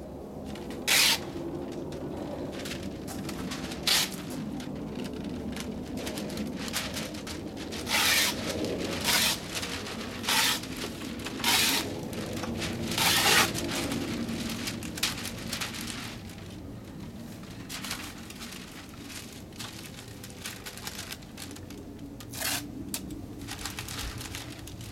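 Masking tape and paper pulled off a hand-held masking dispenser in short, loud ripping strips, eight pulls in all and most of them in the first half, with fainter paper crinkling between them over a steady low background noise.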